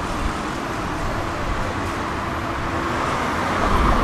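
Steady city street traffic: cars and a light truck driving past. Near the end a passing vehicle grows louder with a low rumble.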